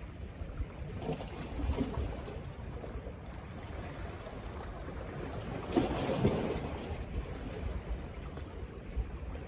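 Wind rumbling on the microphone over water washing against rocks. About six seconds in comes a louder burst of splashing: the hooked king mackerel thrashing at the surface beside the rocks.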